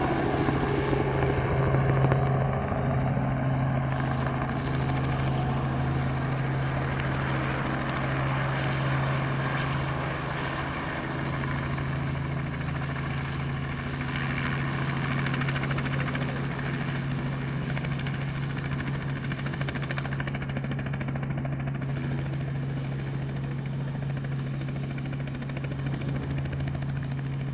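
Robinson R44 helicopter's piston engine and rotors running steadily as it hovers in and sets down on its skids: a continuous drone with a strong, constant low hum, a little louder in the first few seconds.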